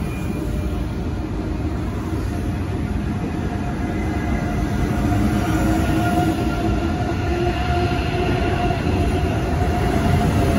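Deutsche Bahn ICE high-speed train moving past along the platform: a steady low rumble of wheels on rail that grows louder, with a whine coming in about halfway.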